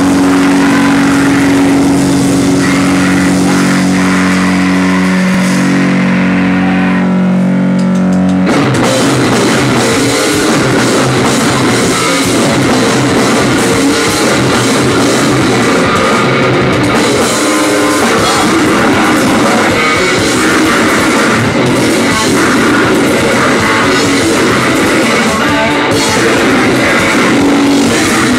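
Grindcore band playing live and very loud: distorted electric guitar through a ZT amplifier, with a drum kit. Held, droning guitar notes for the first eight seconds or so, then the whole band comes in with fast, dense drumming and guitar.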